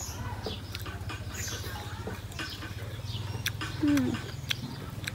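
Eating sounds: chopsticks clicking against a metal wok and a plastic bowl, with scattered sharp ticks and chewing, over a faint steady low hum. About four seconds in comes one short falling hum from a voice.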